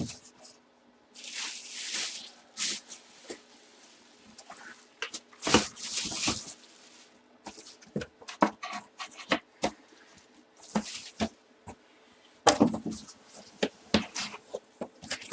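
Hands handling trading cards and plastic packaging: irregular rustles, scrapes and light clicks, with a faint steady hum behind.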